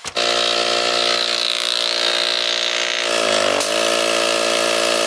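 Small electric air pump switching on and running steadily as it inflates a vinyl pool float. Its motor pitch sags briefly about three and a half seconds in, then recovers.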